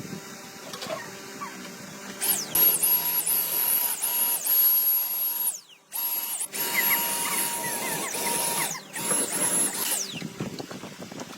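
A high-speed electric power tool, such as a grinder, running in bursts with a steady high whine. It starts about two seconds in, is stopped briefly twice, and its whine falls away as it spins down at each stop.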